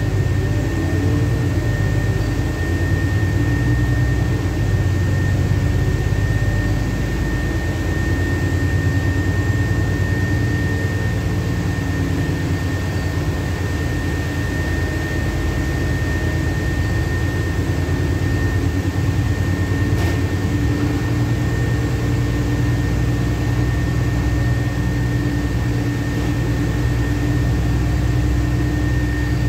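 Interior noise of a LiAZ-5292.65 city bus under way: a steady rumble of engine and tyres, with a thin steady whine above it.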